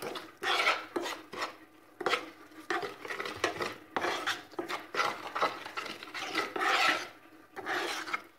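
Metal spoon stirring and scraping a thick sauce of chopped herbs, ground spices and oil around a frying pan, in a run of short, irregular scrapes.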